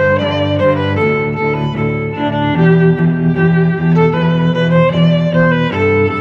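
Background music: sustained instrumental chords over a bass line that shifts every one to three seconds.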